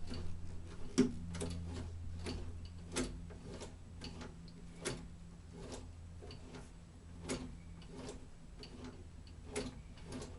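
1930s Singer sewing machine turned by hand at the handwheel, sewing stitches: its mechanism clicks irregularly, about once a second.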